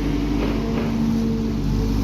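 Diesel engine of heavy machinery running steadily, with a constant low drone.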